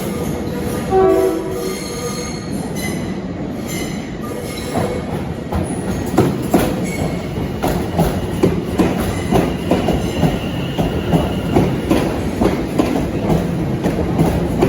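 A train rolling slowly through the station. Its wheels squeal for the first few seconds, with a brief loud tone about a second in, then they click over rail joints and points in a steady rhythm from about five seconds in.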